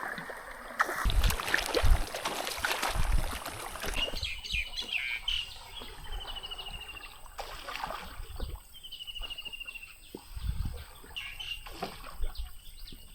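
Water splashing and rushing for the first few seconds, then a bird calling again and again over the river: short chirps and two long falling trills.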